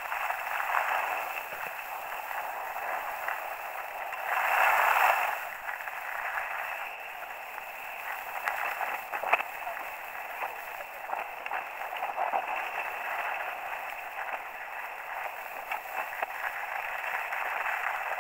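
Steady noise of wind and skis sliding over packed snow, picked up by a body-mounted action camera while skiing downhill. It swells louder about five seconds in, and there is one sharp click about nine seconds in.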